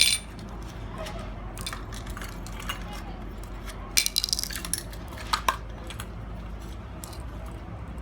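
Small metal and plastic alarm-clock parts being handled, clicking and clinking against each other and the work surface. There is a sharp click at the start, a quick cluster of clinks about four seconds in and two more clinks around five and a half seconds, over a steady low hum.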